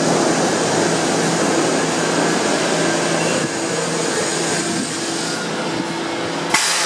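R68 subway train moving past along the platform, a steady rumbling run of wheels and motors with a low hum that eases as it slows, then a sudden sharp hiss near the end.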